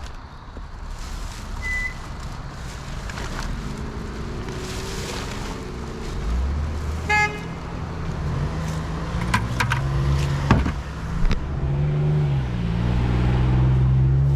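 Road traffic passing close by: car engines and tyres, with engine hum getting louder toward the end as a vehicle comes near. A short high toot about seven seconds in and a few sharp clicks a couple of seconds later.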